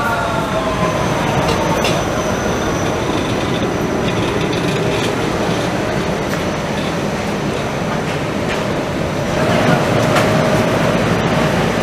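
Vienna U-Bahn metro train moving close by, with a falling electric whine at first over a steady rumble of wheels on rail. About nine and a half seconds in, the sound grows a little louder and a steady hum comes in.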